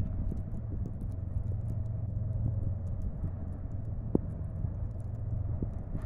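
Steady low outdoor rumble with a faint steady hum above it, and a few faint sharp ticks, the clearest about four seconds in.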